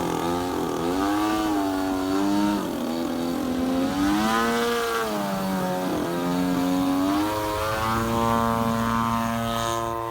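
Gas two-stroke engine of a giant-scale RC Yak-54 aerobatic plane hanging on its propeller in a hover, its pitch swinging up and down as the throttle is worked, then holding steady for the last couple of seconds.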